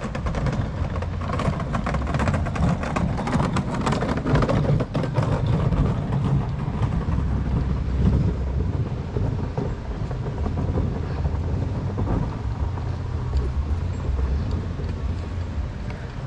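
Wheels rolling over a concrete path, rattling over a steady low rumble, with the rattling busiest in the first half.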